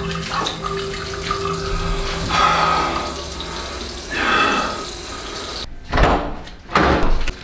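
Tap water running into a bathroom sink, with splashing that swells twice. Near the end the running water cuts off and two short, louder noises follow.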